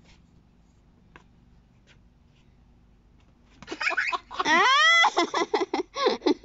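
Laughter: a few fairly quiet seconds, then a burst of laughing a little past halfway that rises into a high squeal and breaks into shorter laughs near the end.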